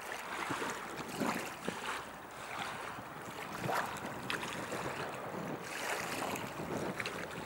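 Rhine river water lapping and splashing irregularly, with many small splashes over a steady wash of moving water.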